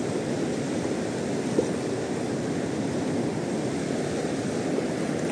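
River water rushing steadily over rocks and shallows, with one small knock about one and a half seconds in.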